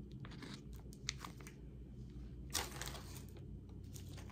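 Clear plastic food packs of pork taco filling crinkling as they are handled and set down on a stack, in a few short rustles, the longest about two and a half seconds in.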